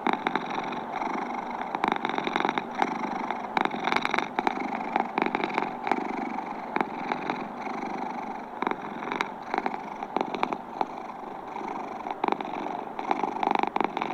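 Domestic cat purring steadily and close up, with many small crackling clicks through it.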